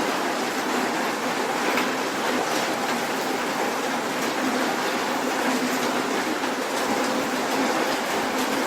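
Soft rain falling steadily on city streets: an even rain hiss with a few faint drips.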